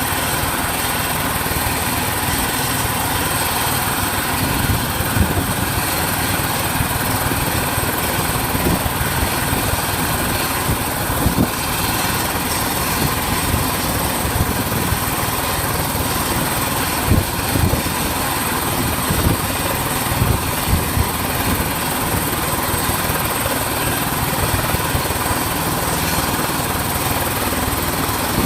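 Helicopter running at close range: a steady high whine over a dense, steady rush, with irregular low thumps throughout.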